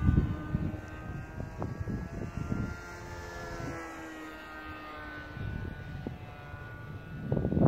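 Electric motor and propeller of a 3D-printed RC Messerschmitt Bf 109T model plane in flight, a steady whine whose pitch slowly falls and rises as it flies past. Gusts of wind buffet the microphone throughout and grow loud near the end.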